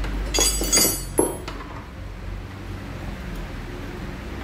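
Metal hand tools clinking on a steel workbench as a wrench or hex key is picked up from among loose tools and bolts: a quick run of sharp clinks in the first second and a half, then only quiet handling.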